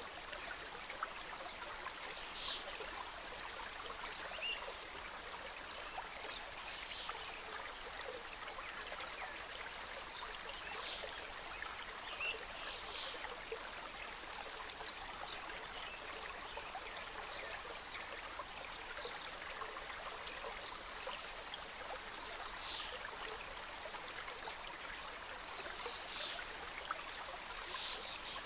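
Mountain stream cascading over rocks, a steady rush of flowing water, with short high sounds standing out now and then.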